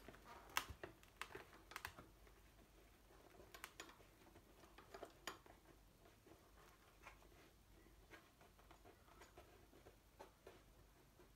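Near silence broken by faint, scattered small clicks and taps, more of them in the first half, from hands handling small parts.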